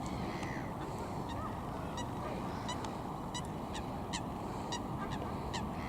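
Geese honking, a run of short calls starting about two seconds in, over a steady low rumble of riding noise.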